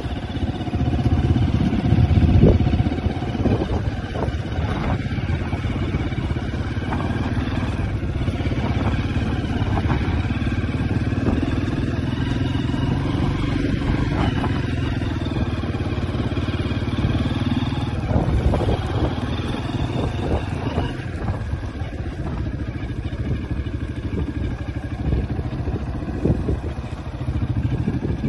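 Farm bike engine running at a steady pace while riding across a paddock, with wind rushing over the microphone.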